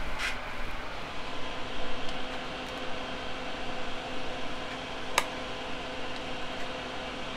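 Steady whir of a small fan running, with a faint hum, and a single sharp click about five seconds in.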